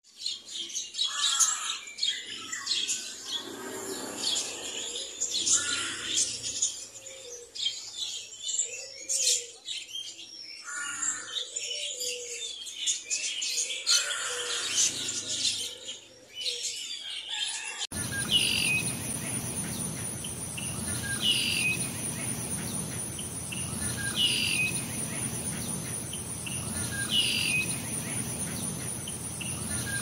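A room of caged canaries and finches chirping and twittering, many short overlapping calls at once. About two-thirds of the way through the sound switches abruptly to a single bird call, a falling chirp repeated about every three seconds over a steady high insect-like drone.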